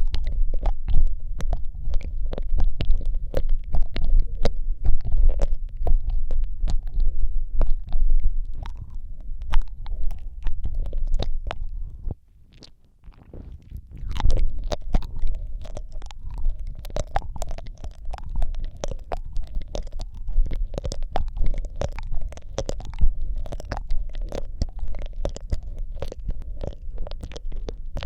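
Wet mouth sounds, a stream of lip smacks, tongue clicks and licking made right against a Rode microphone, with a heavy low rumble from the close mic. They stop for about two seconds near the middle, then carry on.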